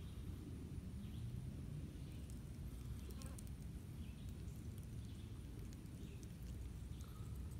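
Quiet outdoor ambience: a steady low rumble with faint short chirps, likely distant birds, every second or two, and a few light crackles about three seconds in.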